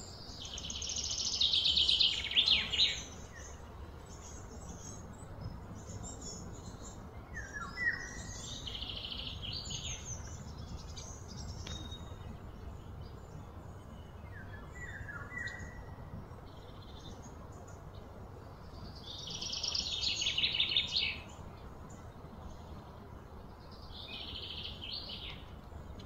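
Birds calling: rapid high trills of about two seconds each, loudest a couple of seconds in and again about twenty seconds in, with softer trills and short falling chirps between, over a low steady background hum.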